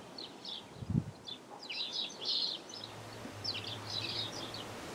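Small birds chirping in short, quick bursts of high notes. A dull thump sounds about a second in, and a low steady hum joins about halfway through.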